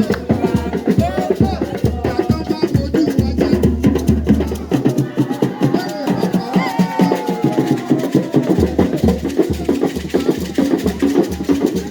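Music with fast, dense drum and hand-percussion beats over pitched parts; the deep bass drops out about five seconds in and comes back a few seconds later.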